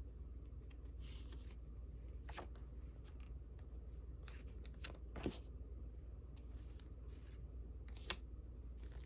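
Old paper calling cards and ephemera being handled: faint paper rustling with three short sharp taps, about two, five and eight seconds in, over a steady low hum.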